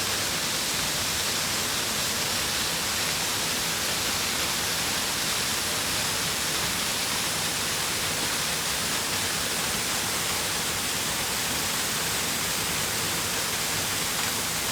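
Waterfall rushing: a steady, even hiss of falling water with no change in level.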